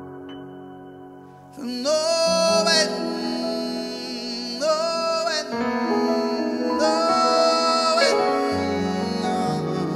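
Live gospel song: a keyboard holds sustained piano-like chords. About one and a half seconds in, a singing voice joins with long held notes, in three phrases.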